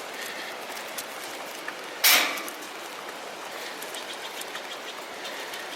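Steady rain noise outdoors, with scattered faint ticks of drops, and one sudden loud noise about two seconds in that fades quickly.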